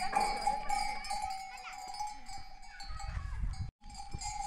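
Bells on a flock of sheep ringing steadily as the animals move, with a few sheep bleating. The sound drops out for a moment just under four seconds in.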